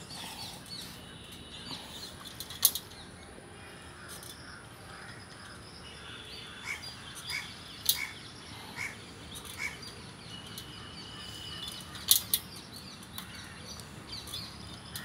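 Pedal-driven piston water pump being worked, with a few sharp clicks scattered through. In the middle comes a run of short chirps about two-thirds of a second apart, among outdoor birdsong.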